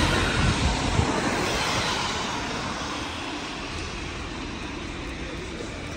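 A vehicle passing by on a city street, loudest at the start and fading away over about three seconds into steady street noise.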